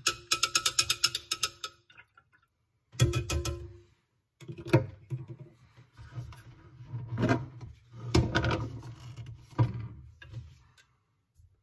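A stirring rod clinking fast against the inside of a measuring cylinder, ringing faintly, as developer is mixed into water for about two seconds. This is followed by several separate knocks and handling noises as the film processing tank's lid is taken off.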